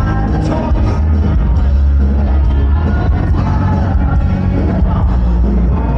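Live band playing loud amplified music with a steady bass line and a singer.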